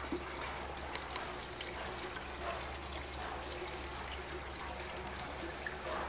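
Water pouring and trickling steadily into a sewage ejector pump basin through its PVC drain line, with a low steady hum underneath.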